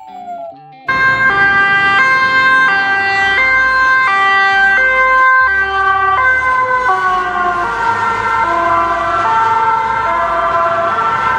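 Ambulance two-tone siren sounding its alternating high-low wail, starting about a second in. In the second half its pitch slides gradually lower, as when an ambulance passes by, and it cuts off abruptly at the end.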